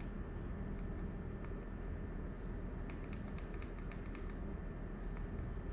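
Scattered small sharp clicks, with a quick run of about a dozen near the middle, over a steady low hum.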